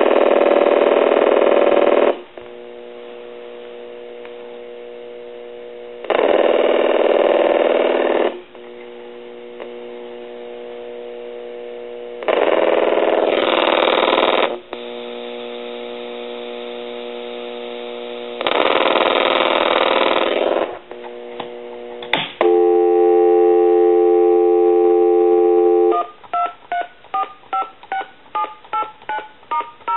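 Telephone line sounds from a Harris TS22 lineman's buttset under test: four rings of about two seconds each, about four seconds apart, with a fainter steady tone between them. A click follows, then a steady dial tone for about three seconds, then a quick string of touch-tone digits being dialed.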